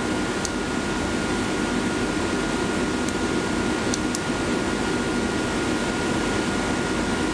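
A fan running steadily with a low whooshing hum and a thin steady whine above it, and a few faint clicks from the gauge cluster's handheld push-button control switch.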